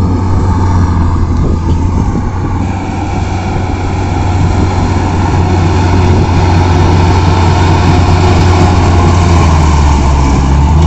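Rice combine harvester running steadily while cutting and threshing paddy: a loud, constant engine hum with machinery noise over it. It grows somewhat louder a few seconds in.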